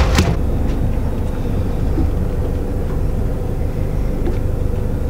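A boat's engine running steadily: a continuous low rumble with a faint steady hum above it.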